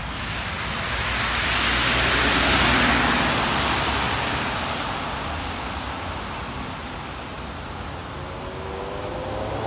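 A road vehicle passing close by: a swell of tyre and engine noise that peaks about two and a half seconds in and then fades, followed near the end by another vehicle approaching with a rising engine note.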